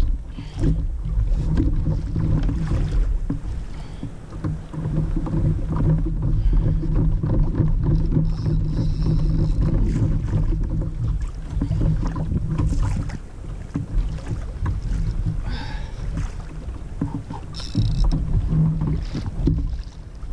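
Water splashing and slapping against a plastic kayak hull as a hooked fish tows it along, with wind rumbling on the microphone and scattered knocks on the hull.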